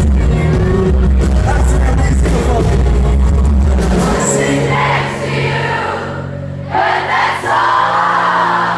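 Live pop song played loud through a concert PA, heard from among the audience, with a singer's voice. The heavy bass drops out about four seconds in, leaving held chords, and near the end the crowd sings along loudly.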